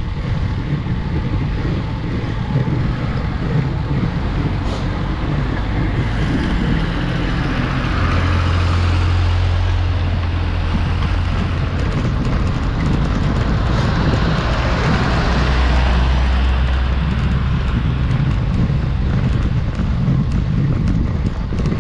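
Steady road and wind rumble on a bike-mounted action camera's microphone during a slow climb, with motor vehicles going by twice, about 8 and 15 seconds in, each a low engine hum lasting a few seconds.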